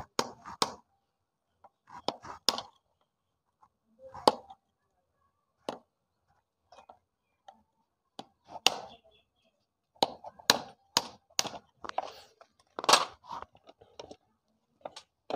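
Hammer tapping on a screwdriver used as a drift to knock a stuck gear shaft out of a Honda CD-70 engine's crankcase: sharp metal knocks, a few spaced taps at first, then a quicker run of them in the last few seconds.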